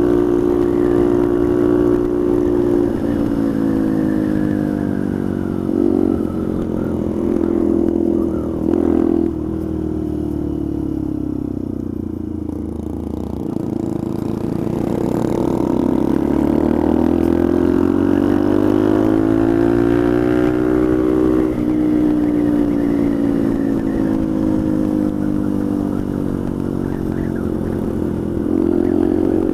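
Motorcycle engine heard from the rider's seat: the pitch falls as the bike slows, with two short louder blips along the way. About halfway through it rises again as the bike accelerates, drops at a gear change, then holds steady at cruising speed.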